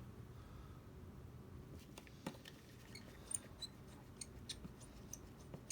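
Faint, irregular light clicks and taps, about eight over the last few seconds, over a low steady room hum: small handling noises on a bench during a repair.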